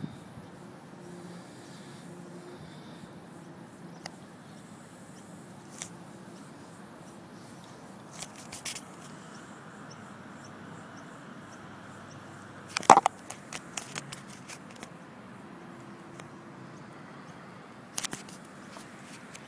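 Handling noise from a phone held in the hand: a steady low hiss broken by a few sharp knocks and rubs, the loudest about thirteen seconds in.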